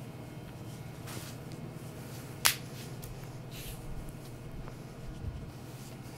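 Quiet movement sounds of a barefoot dancer on a concrete floor: a few soft swishes and one sharp snap or slap about two and a half seconds in, over a steady low room hum.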